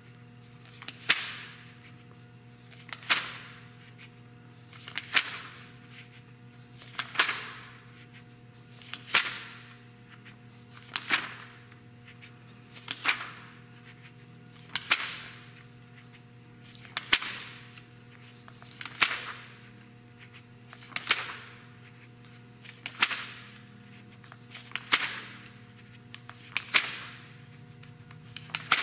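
Magazine pages being turned by hand one after another, a quick papery swish about every two seconds, over a faint steady hum.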